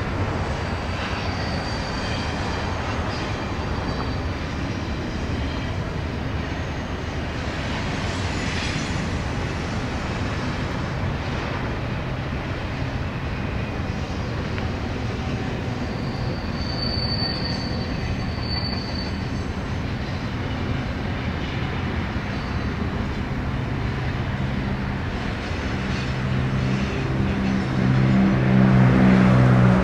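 Double-stack intermodal container freight train rolling by, a steady rumble of cars and wheels on the rails with a few brief, high wheel squeals on the curve. A deeper, louder hum builds near the end.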